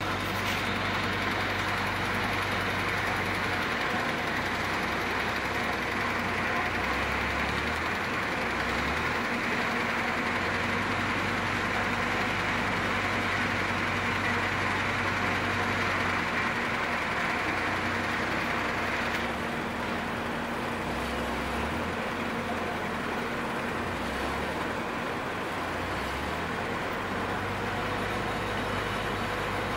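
Root-vegetable conveyor and grading line running with a steady mechanical din and low hum as roots drop off a belt into a wooden pallox bin. The higher-pitched part of the noise eases off a little under twenty seconds in.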